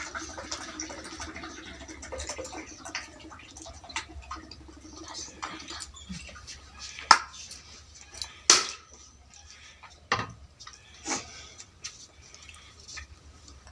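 Eating sounds: soft crackling and scattered small clicks of food and dishes being handled, with a few sharper knocks in the second half.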